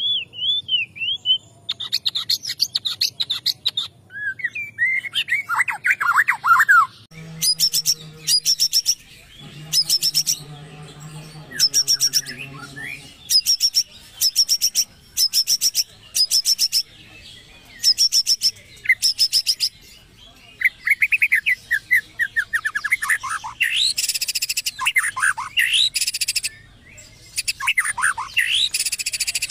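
White-rumped shama (murai batu) singing a loud, varied song. Runs of rapid, sharp repeated notes alternate with falling whistled phrases. The song is filled with mimicry ("isian") of other birds, such as the canary.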